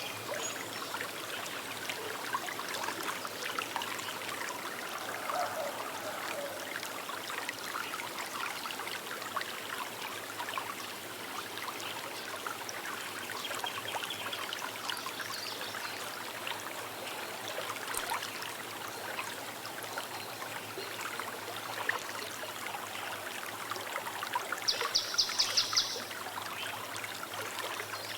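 Small river trickling and babbling steadily over stones. Near the end a bird gives a short, rapid series of high chirps, about eight a second.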